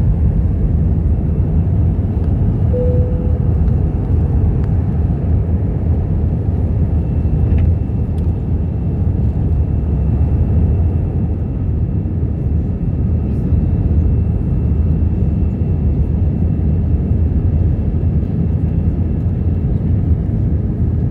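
Passenger airplane taking off: a loud, steady low rumble of engine and airflow noise that holds even throughout.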